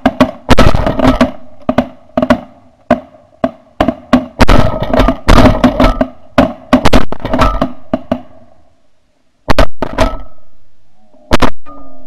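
A volley of shotgun fire from several hunters: many quick shots packed into the first eight seconds or so, then a few more shots near the end. Underneath, snow geese calling steadily in a chorus.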